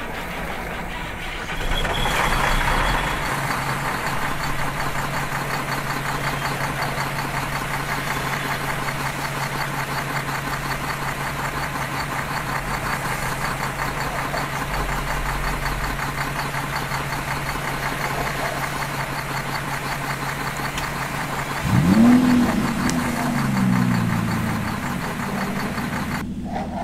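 Battery-powered toy vehicle running: a steady electric buzz and hum with electronic engine sound effects, and about 22 seconds in a tone that rises and then falls.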